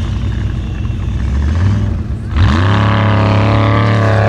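Unlimited-class Formula Offroad buggy's engine under full load on a steep dirt hill climb: rough and lower at first, then a little over halfway it revs up sharply and holds loud and steady at high revs.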